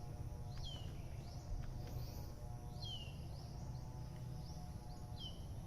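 Wild birds calling repeatedly, a short high note that swoops downward about once a second, over a steady low outdoor rumble.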